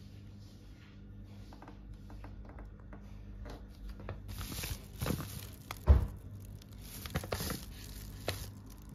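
Insulated foil-lined bag rustling and crinkling as it is handled, with scattered light clicks and one loud thump about six seconds in.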